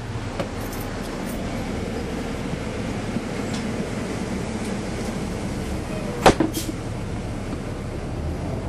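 Caterpillar C13 ACERT diesel engine of a 2009 NABI 416.15 (40-SFW) transit bus running steadily, heard from on board as an even drone. Two sharp clunks from the bus come a little past six seconds in.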